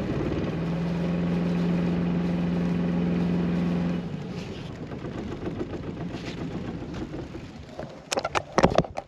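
A sailboat's inboard auxiliary engine running hard in reverse to back down and set the anchor, a steady drone that drops sharply about four seconds in as the throttle comes back, leaving a quieter running hum. A few sharp clatters come near the end.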